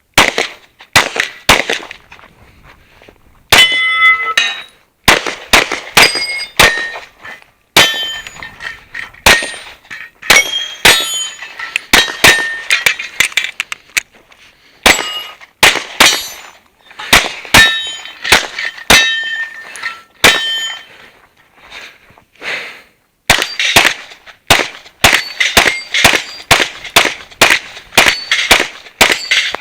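Rapid pistol fire from a Smith & Wesson M&P on a competition stage: strings of quick shots, many followed by the brief ring of hit steel targets, broken by a few short pauses between strings.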